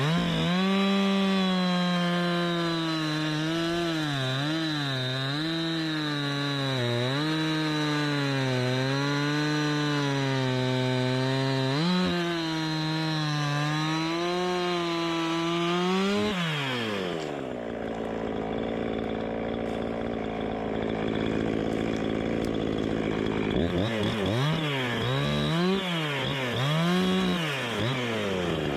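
Gas chainsaw cutting hard, dead ash wood, its engine pitch wavering under load for about sixteen seconds. The engine then drops to idle, and from about three-quarters through it revs up and down quickly again.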